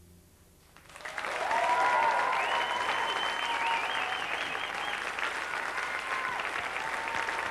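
Studio audience applause breaks out about a second in, just after the song's last note dies away, and carries on steadily with high whistles over it.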